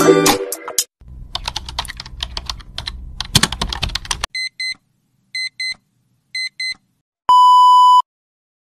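A string of edited sound effects: rapid computer-keyboard typing clicks for about three seconds, then three pairs of short electronic beeps, then a steady test tone of under a second of the kind played with TV colour bars.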